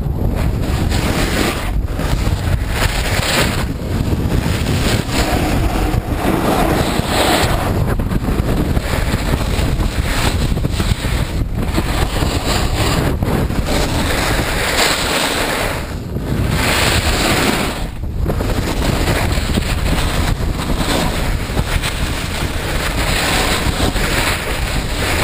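Wind rushing over an action camera's microphone while skiing downhill, mixed with the hiss of skis sliding on packed snow. The noise is steady and loud, dropping away briefly now and then.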